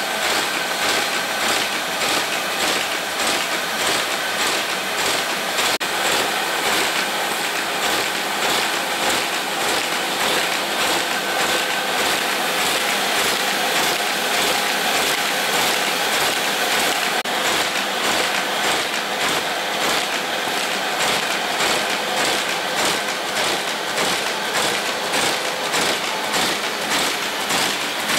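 Stahl T36 buckle folding machine running, feeding and folding paper sheets. It makes a steady, rhythmic mechanical clatter of two to three beats a second.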